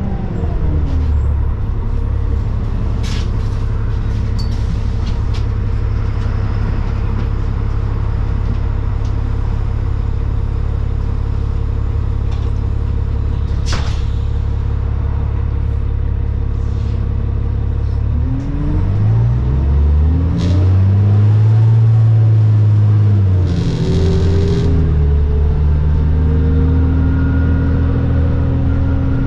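New Flyer D40LFR city bus's diesel engine and drivetrain heard from inside the cabin: a steady low drone with a few sharp rattles, then about two-thirds of the way in the engine pitch rises and falls through several gear changes as the bus pulls away and gets louder. It settles back into a steady drone near the end.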